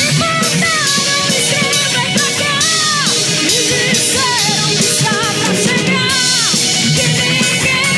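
Rock band playing live: a woman singing lead over two electric guitars, bass guitar and a drum kit.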